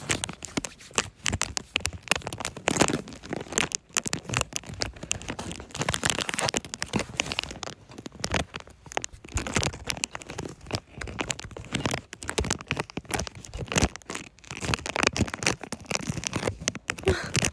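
Hands rubbing hand sanitizer together close to the microphone for ASMR, a dense, irregular sticky crackling and rustling that comes and goes in rapid strokes.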